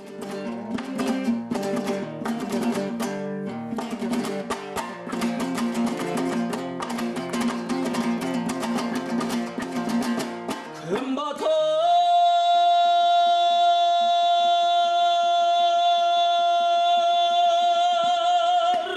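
Opening of a Kazakh folk song: a plucked string instrument is strummed in a quick, steady rhythm for about eleven seconds. Then a singer takes up one long high held note with a slight vibrato, which lasts to the end.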